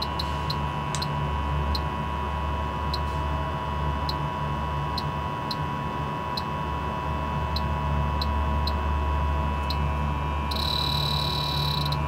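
Electronic refrigerant leak detector (Bacharach H10Pro) ticking about twice a second, then sounding a continuous high tone for the last second and a half. A steady low machinery hum runs underneath.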